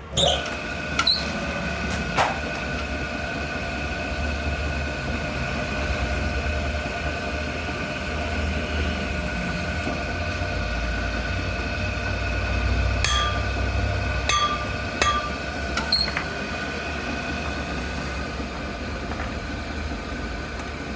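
A machine running steadily, with a low rumble and several steady whining tones, broken by short sharp metallic clicks or taps, a few near the start and a cluster about two-thirds of the way through.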